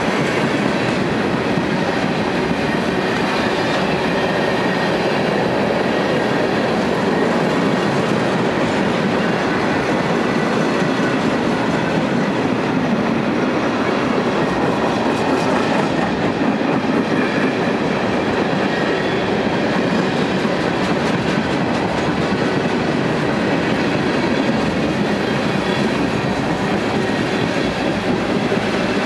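Freight train of tank cars rolling past at close range: a steady, even noise of steel wheels running on the rail, with no horn or locomotive engine standing out.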